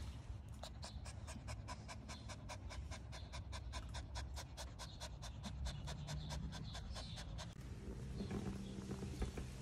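Miniature Schnauzer puppy panting quickly and evenly, about four to five breaths a second, stopping about three-quarters of the way through.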